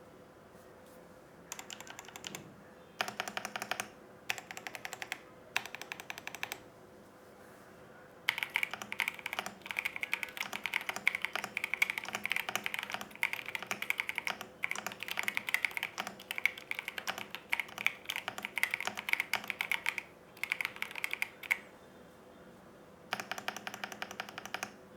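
Typing on the Menel Nia 87 TKL, a gasket-mounted mechanical keyboard: a few short runs of keystrokes at first, then fast, continuous typing from about eight seconds in for some twelve seconds, and two more brief runs near the end. A faint steady hum lies underneath.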